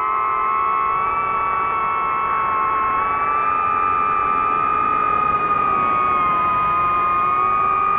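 Drone's electric motors and propellers whining hard at high throttle: a loud, steady high-pitched whine that wavers slightly in pitch.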